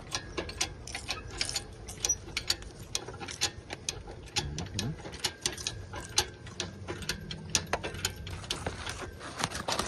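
Engine hoist being worked to lift the engine out: a run of sharp, irregular metal clicks and clanks, several a second.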